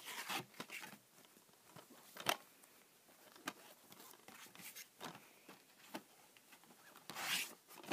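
Faint handling of a DVD case in a slipcover: scattered light clicks and rustles as it is turned over in the hands, with a longer rustle about 7 seconds in.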